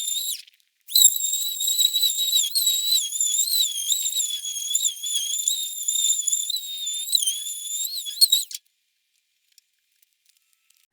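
Power sander on the toolbox's painted sheet metal, a high-pitched whine whose pitch wavers as it is worked over the surface. It drops out briefly just after the start, runs again for about seven and a half seconds, then stops abruptly.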